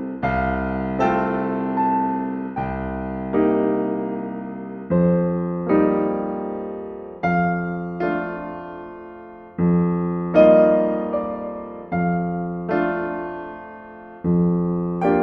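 Solo piano playing a slow, gentle piece, with chords struck about once a second and each left to ring and fade.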